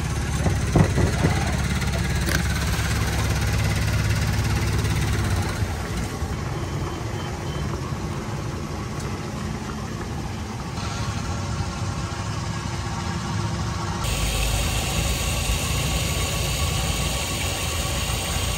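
Diesel running from a fuel-pump nozzle into a plastic jerrycan, over a steady low mechanical hum, with a few clicks about a second in.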